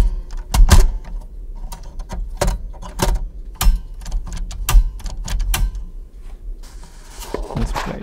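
Manual typewriter keys striking one at a time in an irregular rhythm, each a sharp metallic clack, picked up through a magnetic piezo contact microphone on the typewriter's body with a steady low hum beneath. Near the end the clacks give way to a rougher, continuous rasping noise.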